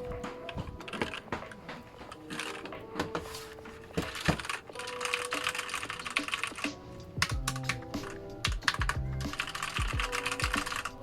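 Typing on a Rakk Lam-Ang Lite mechanical keyboard with red linear switches: a quick, uneven run of key presses.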